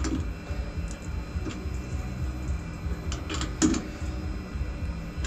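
Scattered light clicks and knocks over a steady low hum, with one louder knock a little past the middle.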